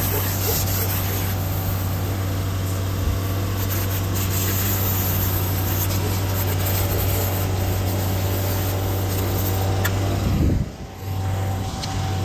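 An engine running with a steady low hum, dipping briefly about ten and a half seconds in before picking up again.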